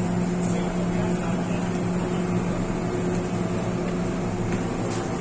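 MTR Tsuen Wan line M-Train heard from inside the carriage while running at steady speed: a constant rumble of wheels on track under a steady motor hum with a few held tones.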